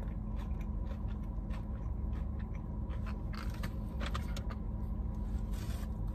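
Steady low hum of a car heard from inside the cabin, with scattered small clicks and crackles as a plastic juice bottle's cap is twisted off and the bottle is handled.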